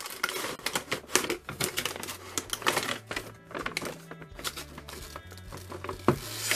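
Cardboard toy box being opened and a plastic tray of small die-cast metal vehicles slid out, with rustling and quick clicks and rattles of packaging and metal toys. Background music with a low bass line plays underneath.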